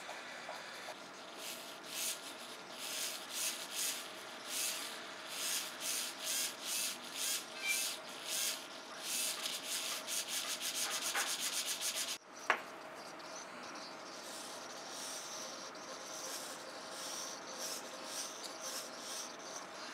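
Small hobby servo motor whirring in many short spurts as its horn swings back and forth, following the tilt of an MPU6050 gyro and accelerometer board under Arduino control. About twelve seconds in the sound breaks off with a single click, then fainter spurts follow.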